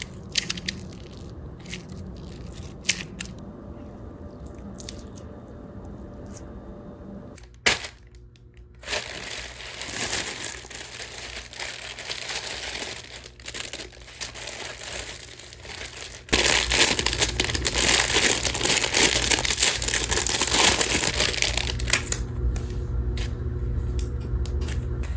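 Crinkly plastic packaging being handled and torn open, with scattered clicks at first and a steady crinkling that grows much louder about two-thirds of the way through.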